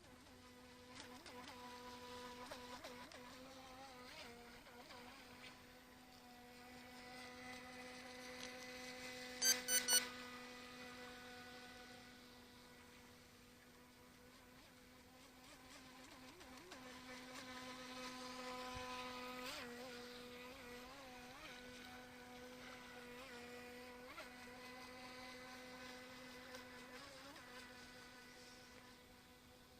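Buzzing whine of a small electric RC speedboat's motor running across the water, steady in pitch and swelling and fading in loudness as the boat moves nearer and farther. Three quick sharp clicks about ten seconds in.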